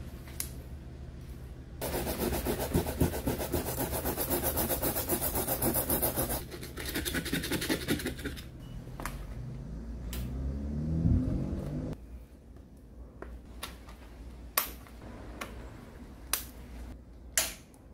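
A knife blade scraping fast back and forth to score a piece of clear plastic sheet, followed by a short rising whine and then three sharp snips as the sheet is cut by hand.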